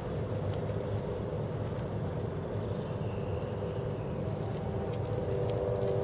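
Steady low rumble of distant road traffic with a faint hum, and a few faint high clicks from about four seconds in as thin creek ice shifts against the stones.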